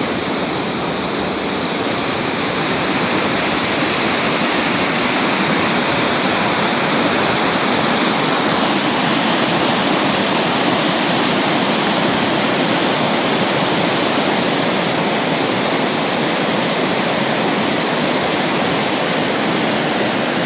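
Fast-flowing mountain water rushing, a loud, steady, unbroken noise.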